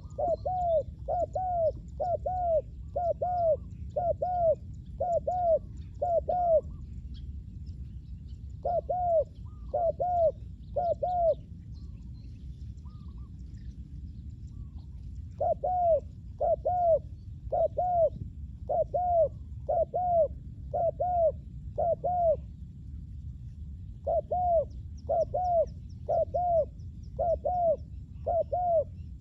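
Spotted dove cooing: runs of short, arched coos, about one and a half a second, broken by pauses of one to three seconds, over a steady low rumble.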